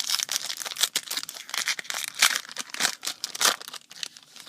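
A trading-card pack wrapper crinkling and tearing as the pack is torn open and the wrapper handled, a dense irregular crackle.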